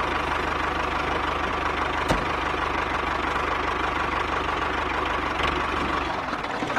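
A motor running steadily, with a regular low putter like an idling engine and a steady whine above it; the sound changes slightly near the end.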